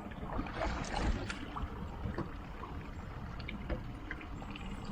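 Water washing around a fishing boat at sea over a steady low rumble, with a few scattered knocks.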